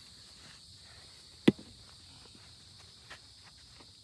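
A single sharp knock about one and a half seconds in, followed later by a fainter click, over faint outdoor background.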